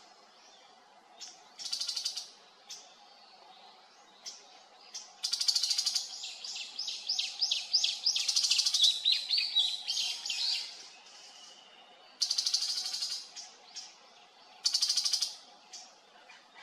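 Tiger shrike calling: harsh, buzzy rasping bursts of about half a second to a second, repeated several times, with a long run of quick, varied chattering notes in the middle.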